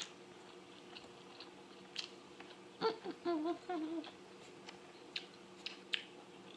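A person chewing a mouthful of breakfast burrito: soft, scattered wet clicks and smacks of the mouth, with a short wavering hum of the voice about three seconds in.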